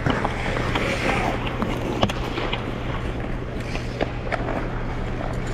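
Ice skates gliding and scraping on rink ice: a continuous blade hiss with scattered sharp clicks, the sharpest about two seconds in, over a steady low hum.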